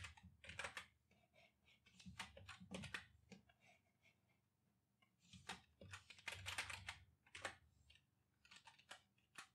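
Typing on a computer keyboard: about four short bursts of quick keystrokes, with quiet pauses of a second or two between them.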